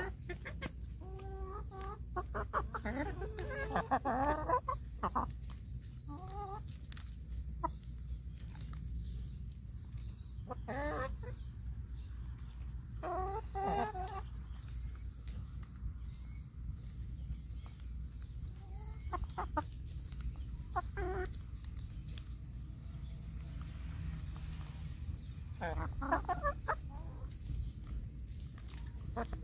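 Domestic chickens clucking and calling in short scattered bouts as they crowd round to peck at corn, over a steady low rumble.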